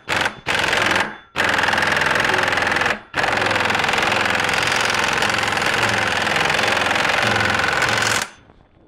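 Impact wrench hammering on a puller's forcing screw to press a power steering pump pulley off its shaft: a rapid rattling in a couple of short bursts, then two long runs with a brief break about three seconds in, stopping shortly before the end.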